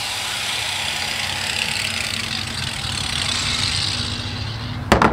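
A steady low engine hum with a hiss that slowly fades, and a short sharp clatter just before the end.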